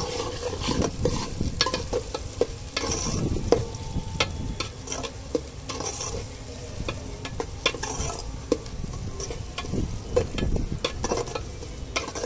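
Sliced onions sizzling in hot oil in a large metal pot, being fried toward golden. A slotted spoon stirs them with frequent sharp knocks and scrapes against the pot.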